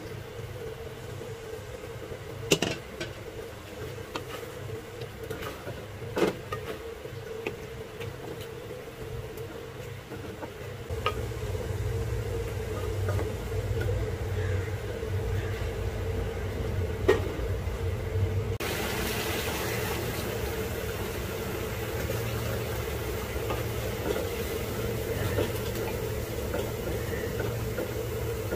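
Chicken pieces cooking in a spiced gravy in a pan over a steady low hum, which gets louder about eleven seconds in. A few sharp knocks of a wooden spatula against the pan come through, three times.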